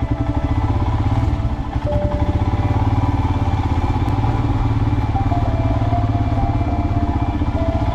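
Motorcycle engine running steadily at low, even revs, close to the microphone, its rapid firing pulses unbroken throughout.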